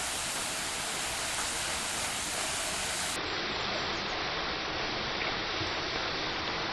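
Rushing mountain water: a dense, steady hiss of water pouring and churning. About three seconds in the top of the hiss drops away slightly.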